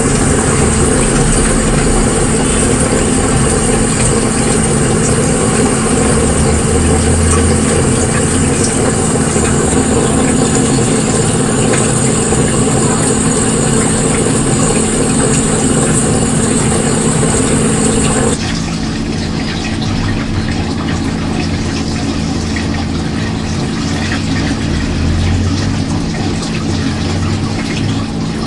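HC Wine Glass 200 aquarium protein skimmer running: a steady pump hum under a dense rushing hiss of air and water churning into foam. About 18 seconds in, the hiss drops suddenly and the sound becomes duller while the hum goes on.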